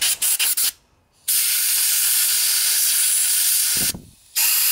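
Compressed-air blow gun blowing through a carburetor's fuel passageways to clear them: a few quick puffs of air, then a long steady hiss of about two and a half seconds, then another short blast near the end.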